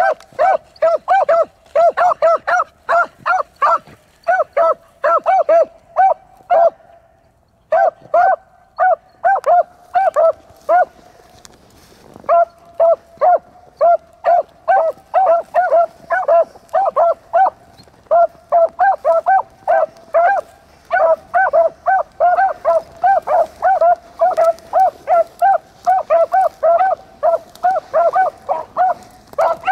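Beagles baying on a rabbit's track: rapid, repeated short calls, a few each second, with two brief pauses along the way. The steady cry is the sign that the hounds are running the rabbit.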